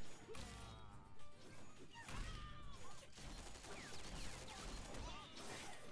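Animated fight scene soundtrack: action music under repeated crashes, thuds and whooshes of weapon impacts.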